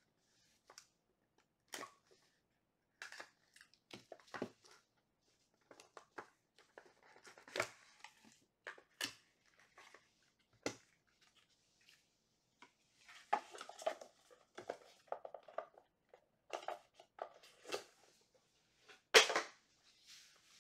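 Handling noises from a cardboard trading-card box being opened and a clear plastic card case being lifted out of it: scattered rustles, scrapes and light clicks. The loudest is a sharp knock about a second before the end, as the plastic case is set down on the table.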